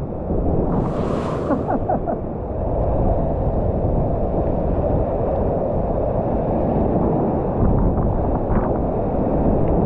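Whitewater rapids rushing steadily close around a kayak, with splashes and water buffeting the microphone; a brief sharper splash about a second in.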